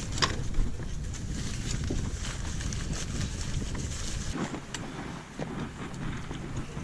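Wind buffeting the microphone as a low, rough rumble that dies down about two-thirds of the way through, with scattered faint clicks and knocks over it.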